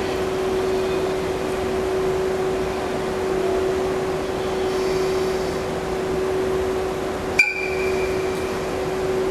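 EF81 electric locomotive standing at idle, its auxiliary machinery giving a steady even hum. About seven seconds in there is one sharp metallic clank with a brief ringing tone.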